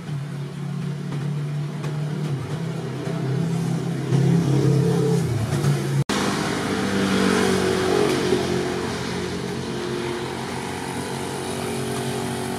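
A steady mechanical hum whose pitch shifts and rises briefly, then, after a sudden cut, a homemade forge blower (an electric standing fan fitted to a plastic jug) running: a steady rush of blown air over its motor hum.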